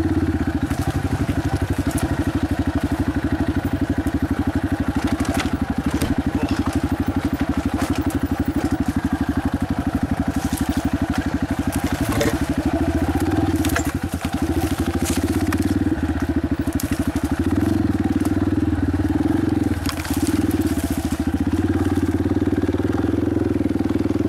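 Dirt bike engine running steadily as it rides a rough track, with scattered crunches and clicks from stones and gravel under the tyres. The engine eases off briefly twice in the second half and runs a little louder towards the end.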